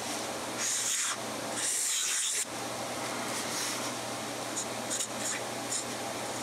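14-karat gold nib of a Mabie Todd Swan 3220 fountain pen scratching across Rhodia paper while a large calligraphic capital S is drawn: two long, loud scratchy strokes in the first few seconds, then short, lighter scratches as the next letters follow.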